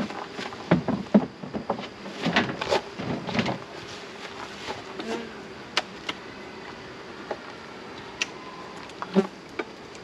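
Wooden beehive frames being pried and knocked loose with a hive tool, frames glued in with propolis: a run of knocks, clicks and scrapes over the first few seconds, then scattered single clicks.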